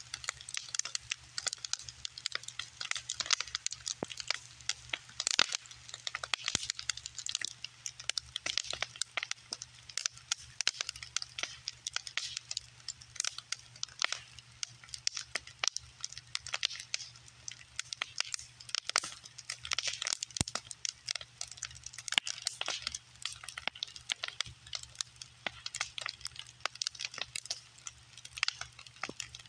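Bonfire of scrap lumber boards crackling, with a constant irregular run of sharp pops and snaps, a few of them louder than the rest.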